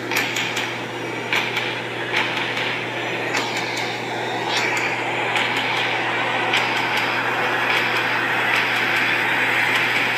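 Car engine running close by with a steady low hum, under a rising hiss and scattered clicks and crackles.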